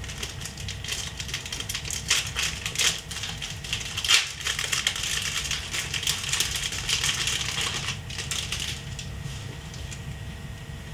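Clear plastic packaging being crinkled and pulled apart by hand, a dense run of crackles and sharp clicks that is busiest for the first eight seconds or so and then dies down.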